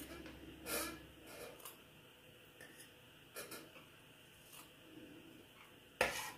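Small scissors snipping through a fluffy sock: several faint, irregular snips, with one louder knock near the end.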